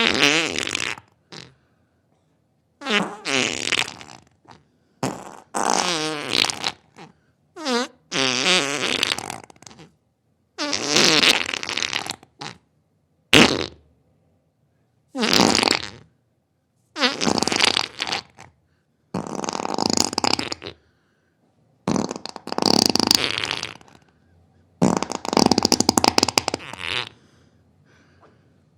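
A series of about a dozen farts, each lasting a second or two, separated by short silences. Some are buzzy with a wavering pitch, others hissy.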